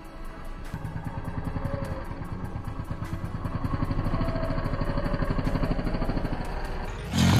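Motorcycle engine running under way, a steady pulsing throb that builds over the first few seconds. Near the end the sound jumps suddenly louder.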